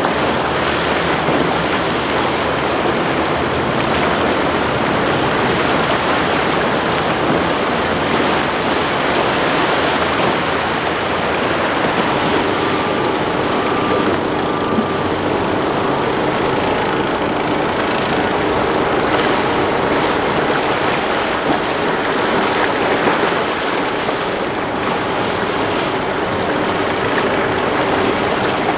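Boat engines running under way, over the rush of hull wash and waves: first a Hydra-Sports center console on triple outboards, then, about twelve seconds in, an Azimut 39 flybridge motor yacht with a steady engine hum.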